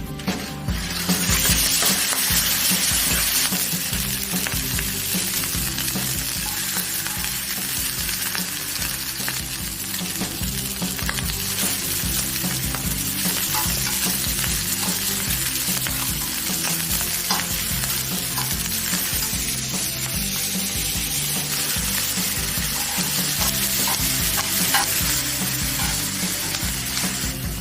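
Pork belly frying on a cast-iron pot-lid griddle (sotttukkeong), a loud steady sizzle that swells up about a second in.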